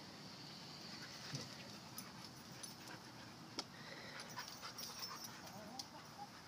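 Dogs at play, panting quietly. A few faint whines come in the second half, among scattered soft clicks.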